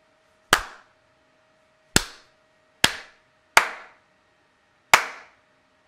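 Five single hand claps, unevenly spaced, each dying away in a short room echo, clapped at a microphone sound-sensor module to trigger an Arduino clap switch.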